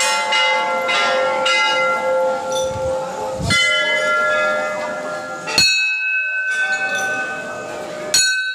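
Temple bells rung by hand, struck again and again every second or two, each strike ringing on and overlapping the last; one of the loudest strikes comes past the middle and another near the end.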